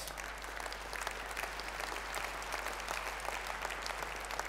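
Audience applauding: many hands clapping in a dense, even stream at a steady level.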